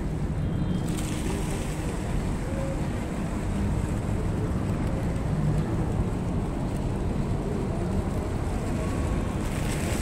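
Steady low rumble of road traffic as cars drive past, mixed with wind on the microphone.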